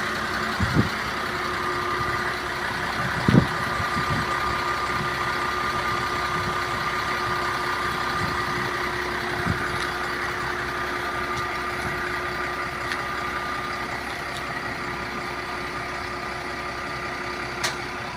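A motor vehicle's engine idling steadily with a constant whine. A few knocks sound over it, the loudest about three seconds in, and there is a sharp click near the end.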